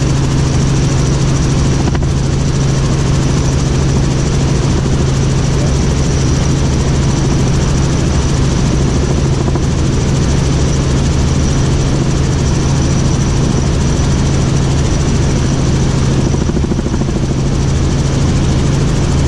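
Helicopter in cruise flight heard from inside the cabin: a steady engine and rotor drone with a strong low hum and a thin high whine above it.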